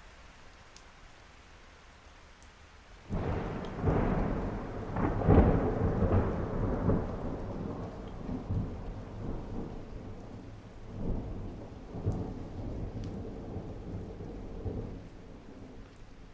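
Steady rain with a clap of thunder breaking suddenly about three seconds in, then rumbling on in several swells before fading away near the end.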